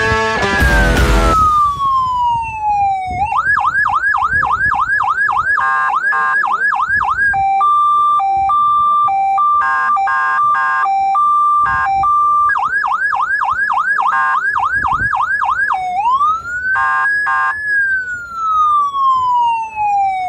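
Electronic emergency-vehicle siren cycling through its tones. It starts with a long falling wail, then about three seconds in switches to a fast yelp, then a two-tone hi-lo alternation, then the yelp again. Near the end it rises, gives a few short blips, and slides down in a long falling tone.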